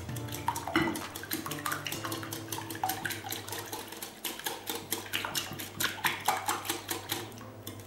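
Wire whisk beating eggs, crème fraîche and milk in a glass bowl: rapid clinks of the metal wires against the glass, several a second, with the wet slosh of the liquid.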